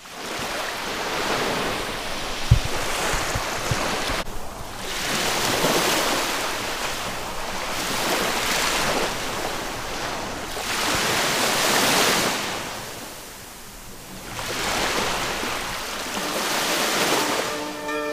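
Surf washing onto a sandy beach, swelling and fading about every three seconds, with one brief low thump about two and a half seconds in.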